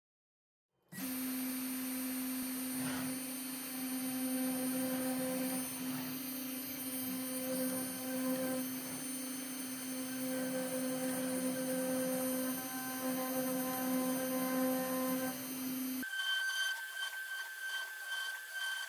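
CNC router spindle turning a 30 degree V-bit at 10,000 RPM while engraving expanded PVC: a steady whine that starts about a second in. About 16 s in the sound changes abruptly to a thinner, higher whine without the low part.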